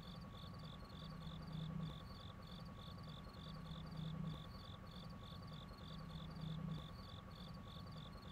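Faint, steady chirping of crickets, about three chirps a second, over a low hum that swells every two seconds or so.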